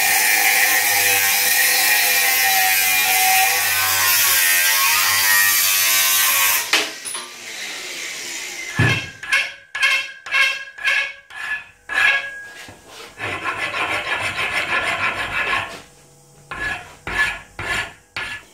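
Angle grinder with a cut-off disc cutting through a 3 mm-wall steel tube clamped in a vise. Its whine falls slowly in pitch under load and stops about six and a half seconds in. Then a hand file deburrs the cut end in repeated scraping strokes, about two a second.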